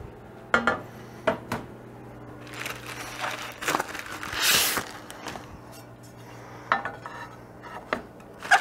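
Pieces of a pizza oven's baking stone being handled and set down: a scatter of sharp clinks and knocks, some with a short ring, and a rustling swish about four seconds in.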